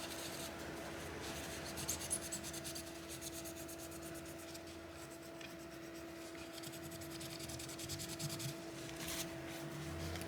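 Fast, scratchy scrubbing strokes as dried old thermal paste is cleaned off a graphics card's GPU with isopropyl alcohol, with a few louder scrapes about two seconds in and near the end.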